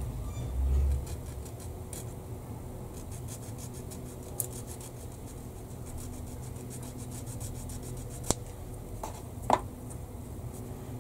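Flat sanding tool rubbed back and forth on a plastic model kit part in quick strokes, about five a second, sanding out an ejector pin mark. A dull low thump comes in the first second, and near the end two sharp clicks as the tool is set down on the bench.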